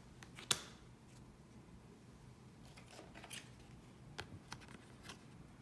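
Tarot cards being handled by hand during a flip-through: a sharp snap of card stock about half a second in, then a few lighter clicks and slides.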